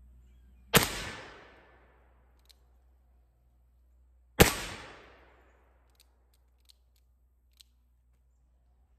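Two shots from an Uberti 1861 Navy .36 cap-and-ball revolver, fired about three and a half seconds apart, each report trailing off over about a second. A few faint clicks follow.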